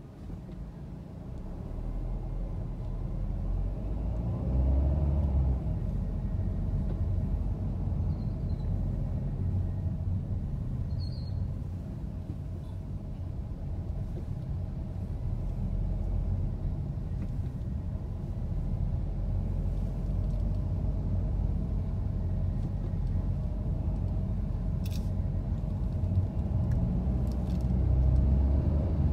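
Car interior noise while driving: low engine and tyre rumble heard from inside the cabin, growing louder over the first couple of seconds as the car pulls away from a stop, then holding steady.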